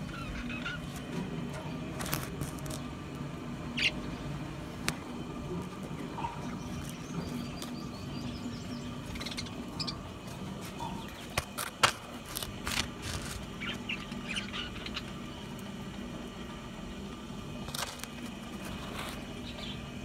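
Budgerigars calling with scattered short chirps and squawks, with a few sharp clicks, over a low steady hum.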